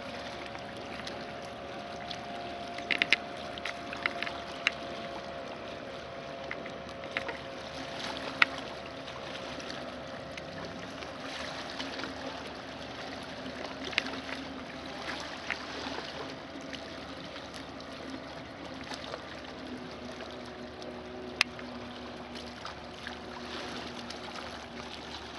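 Small waves lapping against a stony lakeshore, with scattered light clicks, under the steady drone of a distant motorboat engine whose pitch drops lower near the end.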